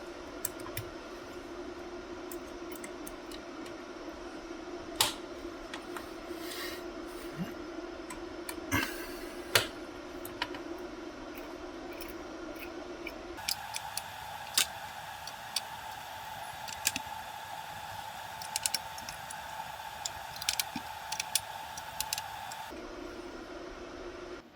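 A steady hum holds one tone that steps abruptly higher a little past halfway and drops back shortly before the end. Scattered sharp clicks and taps, like keyboard typing or handling of small hard parts, sit over it.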